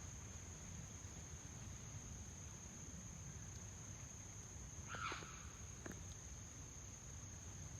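Crickets trilling in one steady high-pitched tone, with a brief louder sound about five seconds in.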